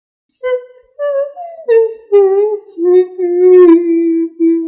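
Creepy ghost crying sound effect: a high, wavering voice sobbing in short wailing phrases, each stepping lower in pitch, the last ones drawn out into a long moan.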